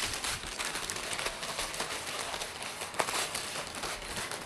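Grey plastic courier mailing pouch crinkling and crackling as it is pulled open by hand, with one louder snap about three seconds in.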